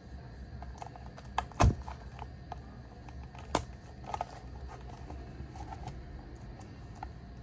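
A small cardboard box being handled: fingers tapping and rubbing on the cardboard, with scattered light clicks and two sharper ones, about one and a half seconds in and again past three and a half seconds.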